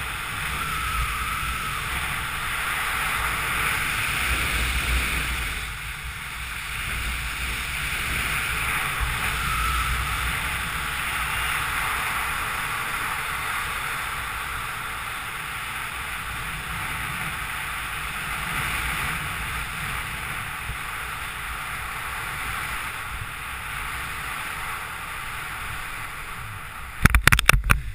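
Steady wind rushing over the microphone of a camera worn by a speed rider in flight, with a burst of sharp knocks near the end.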